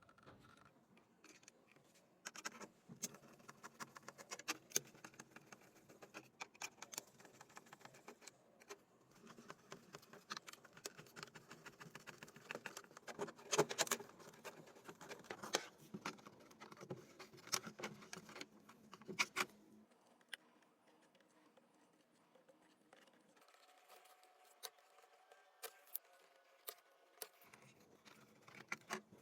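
Irregular small clicks, taps and scratches of plastic keyboard parts being handled, thickest in the first two thirds. They thin out after about twenty seconds, leaving a faint hum.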